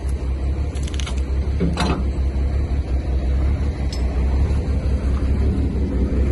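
Tow truck's engine idling with a steady low rumble, with a few short metallic clinks about one to two seconds in as the J hooks are worked onto the axle.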